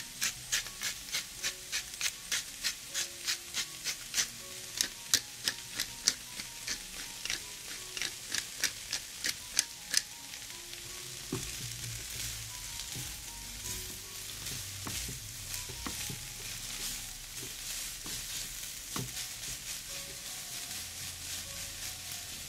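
Shredded cabbage and egg sizzling in a frying pan as they are stirred with a spatula. Through the first half, a run of sharp, evenly spaced clicks, about three a second, stands out over the frying. After that only the sizzle and the stirring go on, with a few knocks against the pan.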